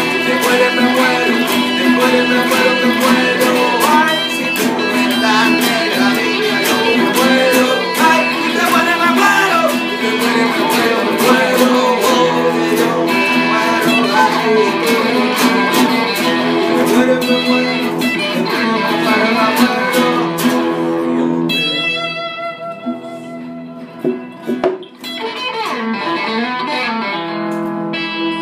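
Instrumental music from three acoustic guitars and an electric guitar played through a small amp, strumming and picking together. About three-quarters of the way through, the playing thins to a few ringing notes, then full held chords come back in near the end.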